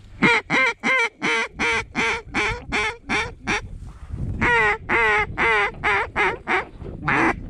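Hand-blown Canada goose call sounding a fast run of honks and clucks, about three a second, each note breaking in pitch, with a short pause near the middle and one longer honk near the end: a hunter calling to Canada geese to draw them to the decoys.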